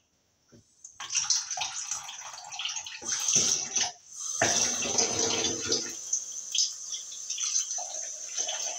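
Kitchen tap turned on about a second in, water running into a steel sink and splashing into a plastic ice cube tray as it is filled. The flow pauses briefly about four seconds in, then comes back heavier before settling to a steadier run.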